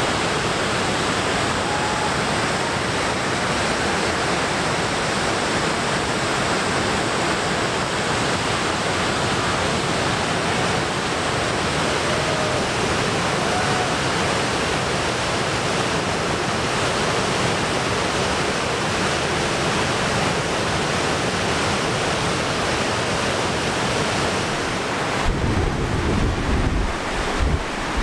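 Steady rush of Goðafoss waterfall and its churning plunge pool of white water. Near the end, low gusts of wind buffet the microphone.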